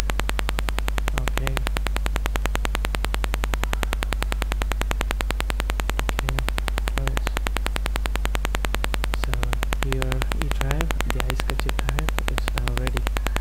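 Loud, steady electrical hum and rapid buzzing from a faulty microphone, recorded noise rather than any real-world sound. A faint, muffled voice is barely heard under the buzz near the end.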